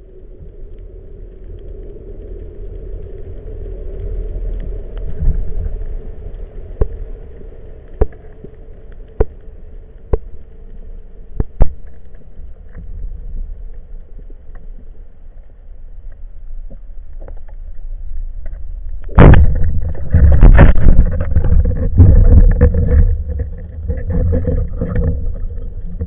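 Muffled underwater rumble of a spearfishing dive, with a run of sharp clicks about once a second. About nineteen seconds in a sudden loud bang is followed by loud churning water noise.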